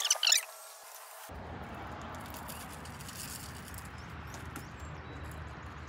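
A brief burst of high squeaky chirps, then about a second in a change to steady outdoor background noise with a low rumble and a few faint clicks.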